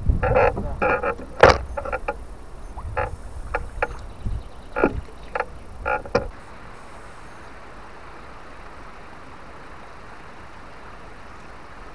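Irregular knocks and clunks on a small fishing boat while a caught fish is handled on deck, the loudest a sharp bang about a second and a half in. The knocks stop after about six seconds, leaving a steady even hiss.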